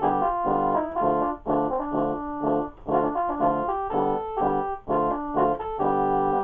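Background music: short repeated chords in a steady rhythm, about two a second.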